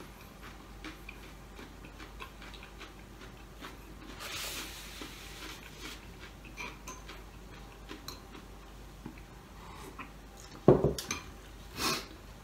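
Eating sounds at a table: scattered light clicks of a spoon and fork against a plate and pan, with a soft rustle about four seconds in. Near the end, a louder knock and then a brief rustle as a bottle is picked up.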